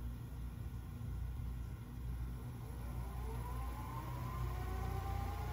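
Sharp VC-H986U VHS deck rewinding a tape: a steady low mechanical hum, joined about halfway in by a whine that rises in pitch as the reels speed up.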